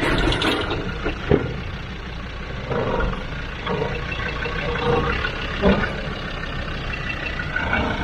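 Land Rover Discovery 2's TD5 five-cylinder turbodiesel running at low revs as the truck crawls up a rock step, with two sharp knocks, one about a second in and another a few seconds later.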